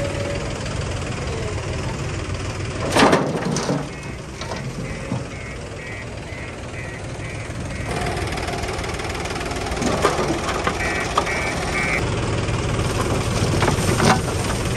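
JCB 3DX backhoe loader's diesel engine running steadily while its reversing alarm beeps in runs, about two beeps a second. A loud metallic clank comes about three seconds in.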